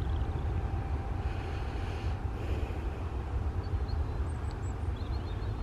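Distant jet engines of a Boeing 737-800 taxiing: a steady low rumble.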